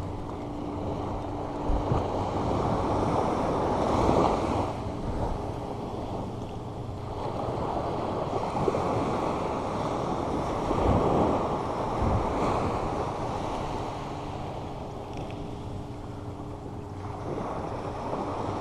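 Ocean surf on a sandy beach: small waves breaking and washing up the shore, the rush of water swelling and fading every few seconds.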